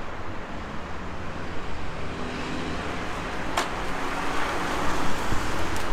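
Steady outdoor background noise with a low rumble, of the kind that distant road traffic and wind make, with one sharp click a little past halfway.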